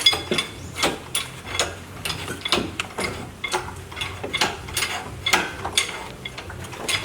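A run of sharp metallic clicks and clinks, irregular, about two or three a second, some with a short ring: metal tools and parts knocking together during hands-on engine installation work.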